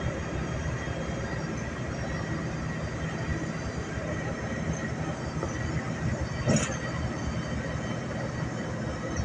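Steady engine and road noise inside a moving bus, with one short knock about six and a half seconds in.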